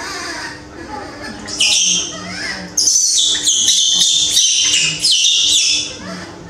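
Baby macaque screaming and crying in a run of shrill calls that step down in pitch, loudest from about two seconds in until shortly before the end. It is the distressed crying of a frightened infant monkey.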